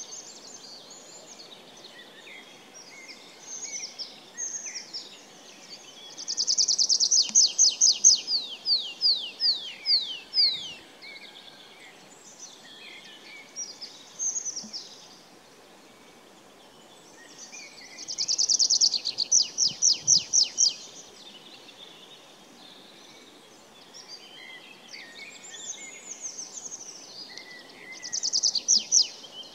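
Tree pipit singing from a perch: repeated song phrases every few seconds, each a fast high trill that breaks into a run of separate, drawn-out falling notes. The loudest phrases come a few seconds in and again about two-thirds of the way through, with quieter fragments between, over a steady low outdoor hiss.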